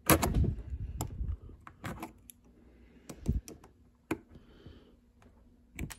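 Steel needle-nose pliers clicking and scraping against the small metal retaining clip on the pivot of a Shimano 400FF derailleur as the clip is worked off. The result is a run of irregular sharp clicks and taps, loudest right at the start.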